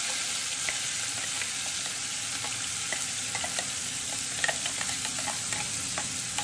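Blended chilli and shallot sambal paste sizzling in hot oil in a pan: a steady frying hiss with scattered sharp crackles as the paste hits the oil.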